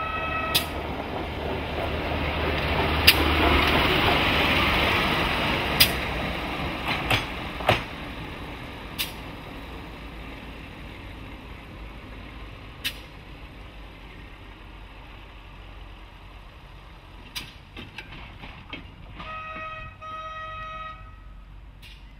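A narrow-gauge PD1 draisine running along the track, its engine and wheel noise swelling to a peak about four seconds in and then fading, with sharp clicks along the way. Near the end a horn sounds a steady high note in two short parts.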